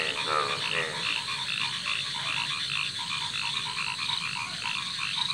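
A breeding chorus of male pond frogs (genus Rana) calling to attract females: many short, repeated croaks overlapping one another. A few louder calls rise in pitch in the first second.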